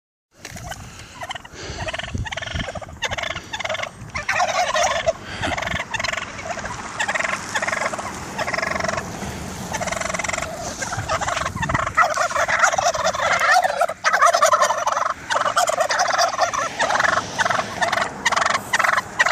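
Turkeys gobbling, their rattling calls overlapping almost without a break.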